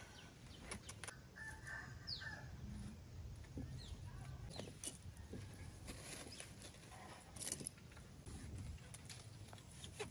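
Domestic chickens clucking faintly, among scattered light clicks.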